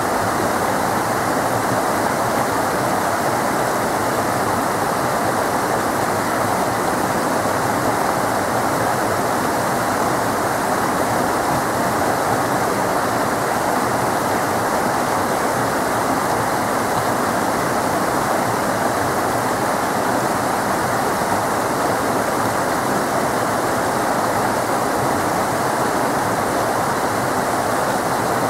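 A small rocky river cascading over rocks and small falls, a steady loud rush of water.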